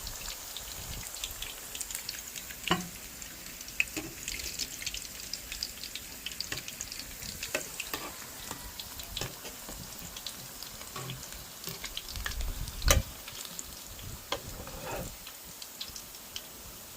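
Hot oil sizzling and crackling in an electric frying pan, with many small scattered pops. One louder knock comes about three-quarters of the way through.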